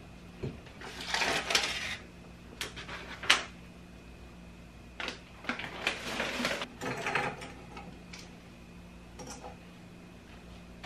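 Small objects being taken off a wooden cabinet shelf and set down: scattered clicks and light knocks with bouts of rustling, over a faint steady hum.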